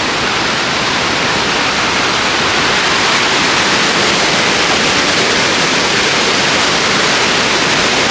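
Waterfall close by: a loud, steady rush of falling water that starts abruptly just before and holds unchanged throughout.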